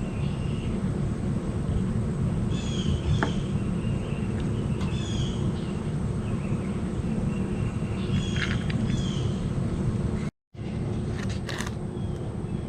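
Steady low rushing of an electric fan, with birds chirping a few times in short bursts. The sound cuts out for a moment near the end.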